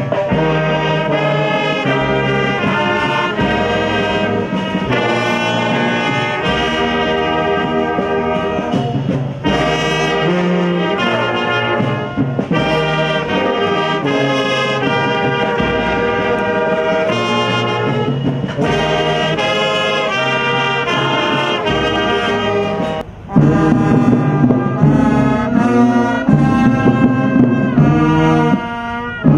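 Military brass band with sousaphones and saxophone playing a slow tune of held notes. About 23 s in the music jumps louder, with deeper notes.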